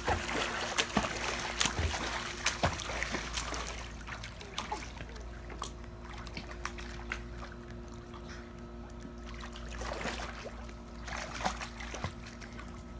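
Pool water splashing as a small child in a life vest thrashes and paddles, busiest in the first few seconds, then settling into quieter lapping and sloshing with a few brief splashes near the end, over a steady low hum.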